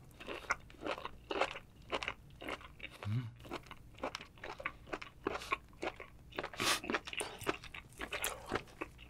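Close-miked chewing of chewy horned turban sea snail meat: a steady string of wet chews, about two to three a second. A short closed-mouth hum about three seconds in.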